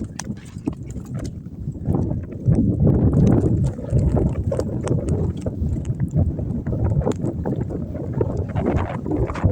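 Blizzard wind buffeting the microphone: a loud, gusting low rumble with scattered crackles, growing stronger about two and a half seconds in.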